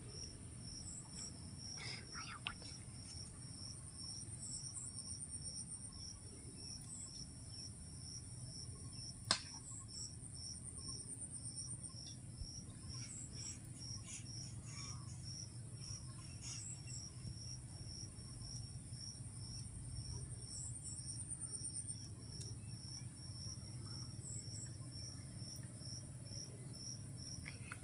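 Crickets chirping steadily, about three high chirps a second, with a higher buzzing insect trill coming in now and then. A single sharp click sounds about nine seconds in.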